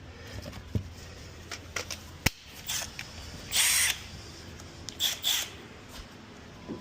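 Hand tools being rummaged through in a tool box: scattered metal clicks and clinks, with a short scraping rattle a little past halfway.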